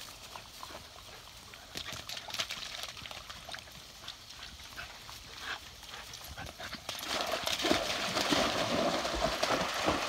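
Dogs' paws patter and thud over dry grass as they run. About seven seconds in, a louder, steady splashing of water takes over as they reach a muddy pool.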